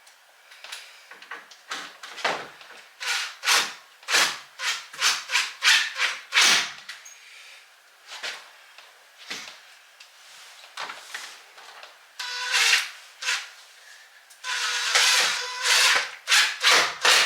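Bursts of quick scraping strokes, a few a second, with a faint squeak in the last run: hand-tool work on a door lite frame being fitted into an entry door.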